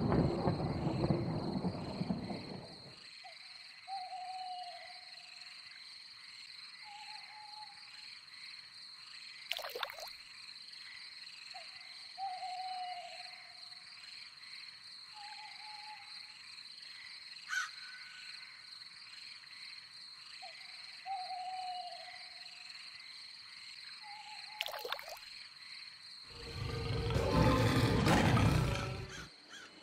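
Swamp-like sound-design soundscape: a steady high-pitched drone with short frog croaks coming in pairs every few seconds. It opens on a loud rushing noise that fades about three seconds in, and a loud rushing swell rises near the end and cuts off.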